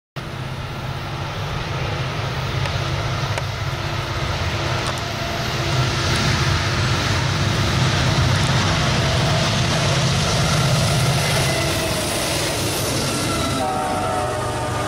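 Norfolk Southern diesel locomotives approaching with a stack train, their engines running with a steady low hum over wheel and rail noise. A set of steady higher tones comes in near the end.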